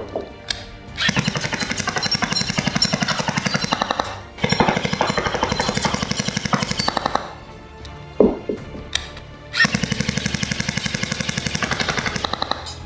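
Tokyo Marui H&K USP automatic electric airsoft pistol firing on full auto: three long bursts of a rapid, even clatter, each about three seconds, with short pauses between them.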